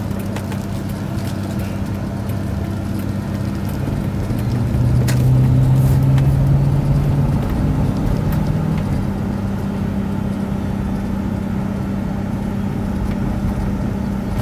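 Engine and road noise heard inside the cab of a 2002 Chevrolet Avalanche driving at about 30 mph: a steady low drone. A deeper engine hum swells from about four seconds in and eases off again around eight seconds.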